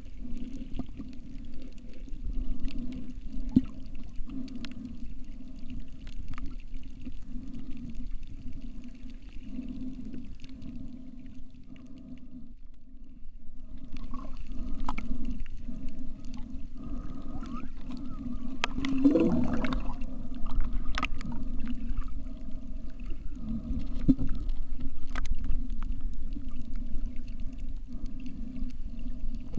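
Muffled underwater sound picked up by a camera in a waterproof housing: a steady low hum with scattered sharp clicks, and a short wavering pitched sound a little past the middle.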